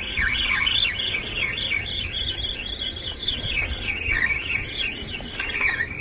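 Spinning reel cranked fast to bring in a hooked fish: its gears whine, the pitch rising and falling with each turn of the handle, and the whine fades near the end.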